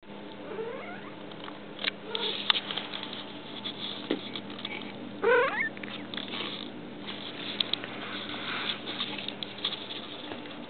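Cats scrambling after a mouse on a tile floor: pattering paws and scuffling clicks, with a short wavering squeal about halfway through.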